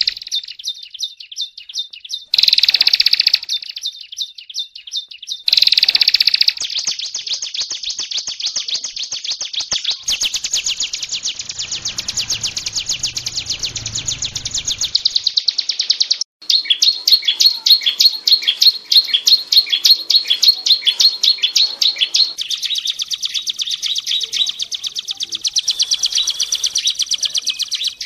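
Ciblek gunung (prenjak gunung, a mountain prinia) singing vigorously: long runs of rapid, high, repeated notes, louder for a moment about two and six seconds in, with a brief break near sixteen seconds.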